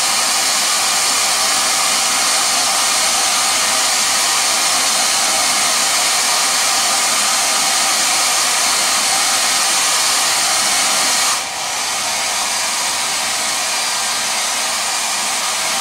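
Conair 1875 hand-held hair dryer running steadily, blowing over freshly applied leather dye to dry it. Its level dips briefly about eleven seconds in.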